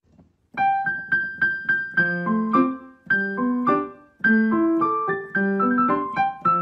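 Background piano music: a light melody of struck notes in short phrases over a bass line, starting about half a second in after a brief silence.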